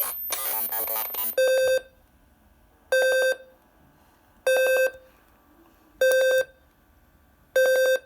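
Arduino alarm clock's alarm going off. A short harsh buzzy electronic burst, then a buzzer beeping five times at a steady pitch, each beep under half a second with a fast stutter inside it, about every second and a half.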